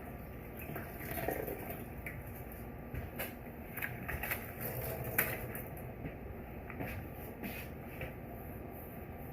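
Irregular light knocks, clatter and rubbing from hands-on cleaning, things handled and surfaces wiped with a wet rag; the loudest knock comes about five seconds in.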